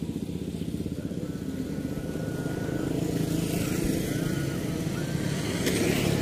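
Motorcycle engine running with a fast, even low pulse, growing louder in the second half as it comes closer.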